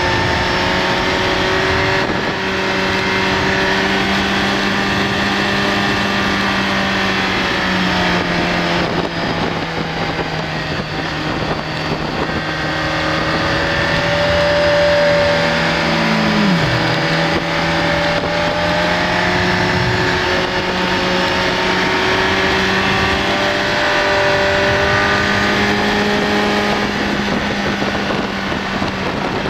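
BMW K1200S inline-four motorcycle engine running under way, its pitch shifting up and down a little with the throttle through the bends and dropping sharply once about halfway through, with wind noise.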